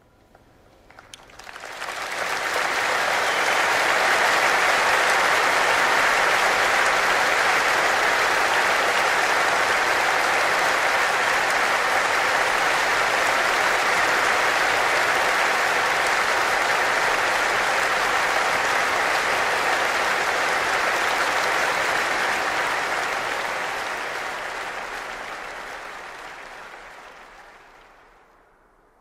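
Audience applauding: a few scattered claps build within a couple of seconds into full, steady applause, which then fades out gradually over the last few seconds.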